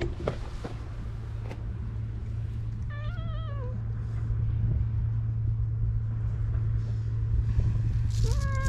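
Cat meowing twice: a short, wavering meow about three seconds in, and a longer meow falling in pitch near the end, over a steady low background rumble.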